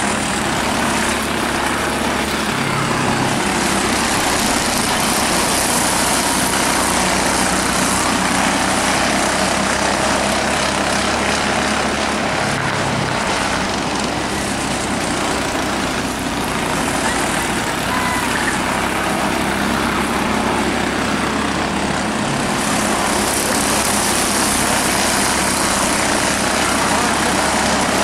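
A field of Jr. Late Model stock cars running at speed around a short oval, their engines blending into a steady, dense racing noise.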